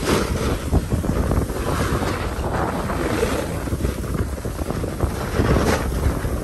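Wind buffeting the microphone of a moving snowboarder's camera, over the steady scrape of a snowboard sliding on groomed snow, with a harsher swell right at the start and another near the end.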